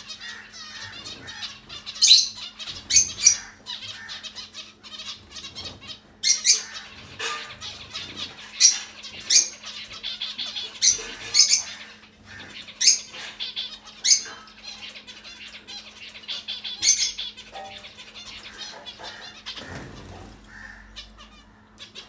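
Zebra finches calling: short, high-pitched chirps in scattered bursts, fewer near the end, over a faint steady low hum.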